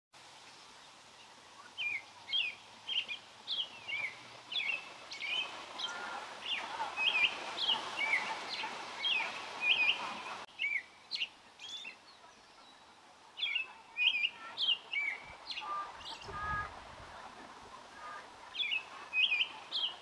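American robin singing: bouts of short, clear whistled phrases repeated in quick succession, with pauses between the bouts.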